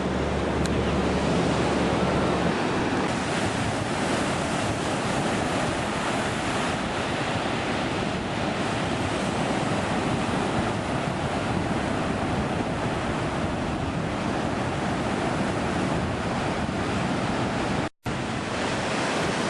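Steady, even rushing noise outdoors, with no bird calls standing out, that cuts out for an instant near the end.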